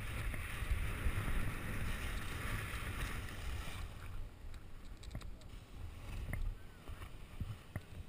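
Wind buffeting the camera microphone while skis slide over snow with a steady hiss under a speedflying wing. The hiss stops about four seconds in as the skier halts, leaving the wind rumble and a few faint clicks.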